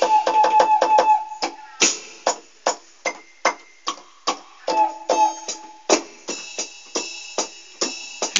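Drum voices on an electronic keyboard played by hand: a run of sharp drum hits in an uneven rhythm, about two to three a second, some with short pitched tones ringing under them.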